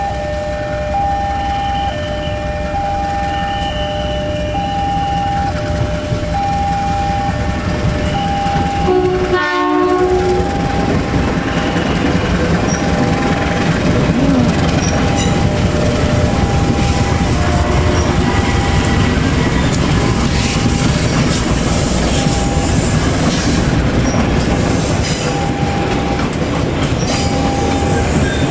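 An electronic warning tone beeping about once a second. About a third of the way in comes a short diesel locomotive horn blast, then trains passing close by, with wheel rumble and clatter on the rails growing louder.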